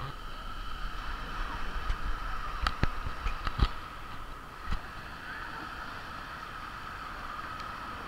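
Beach ambience: a steady wash of surf and wind, with a few sharp knocks of plastic toy spades in the sand about three seconds in and once more near five seconds.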